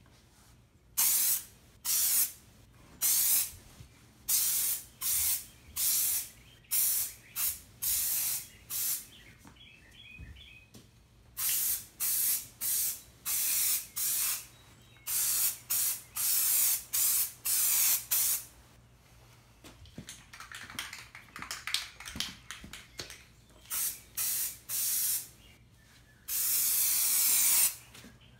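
Aerosol can of truck bed coating spraying in many short hissing bursts with brief gaps, about one to two a second, and one longer spray near the end: a light first coat going onto steel strut channel.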